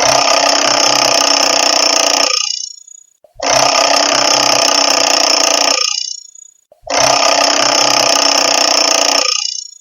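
Classic analog alarm clock's bell ringing in three bursts of about two and a half seconds each, with a second's silence between them; each ring fades out at its end.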